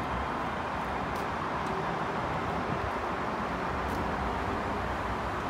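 Electric multiple-unit train running past, a steady rushing rumble with no change in level.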